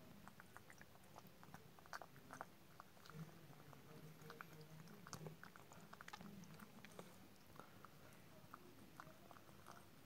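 Domestic cat eating wet cat food chunks from a glass bowl: faint, irregular chewing with small wet clicks.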